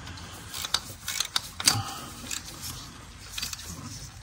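Hand ratchet clicking in short, irregular runs of sharp ticks as a 10 mm ignition coil pack bolt is snugged down by hand.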